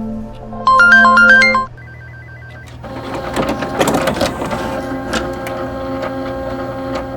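A mobile phone ringtone plays a short bright melody, then about three seconds in a printer starts running: a steady drone under busy clicking.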